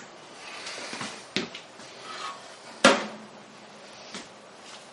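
Handling noise with sharp clinks of an eating utensil against a dish or cooking tray: one about a second and a half in and a louder one near three seconds.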